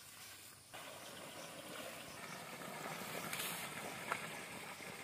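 Fermented jaggery wash pouring and splashing out of a tipped blue plastic drum onto the ground, starting under a second in and running as a steady wash of liquid.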